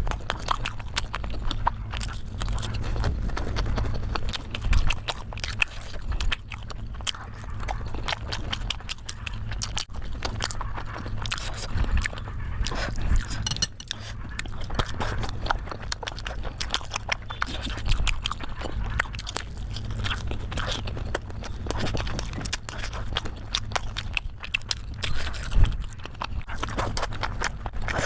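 Close-miked eating sounds: a person chewing steamed momos with continuous wet smacks and small clicks of the mouth and lips, over a steady low hum.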